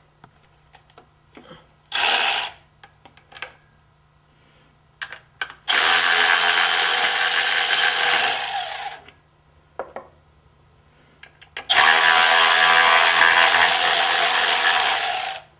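Handheld power tool driving a socket on an extension to remove bolts. It gives a short burst, then two runs of about three and four seconds.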